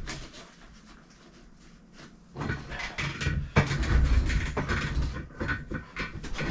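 Hands handling bike parts and tools: irregular knocks, clicks and rustling that start about two and a half seconds in, with one sharp click partway through.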